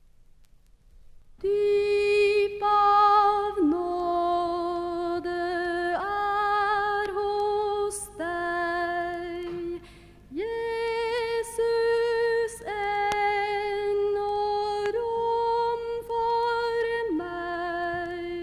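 A woman's voice singing slow, long held notes with vibrato, nearly unaccompanied, starting about a second and a half in after a short silence.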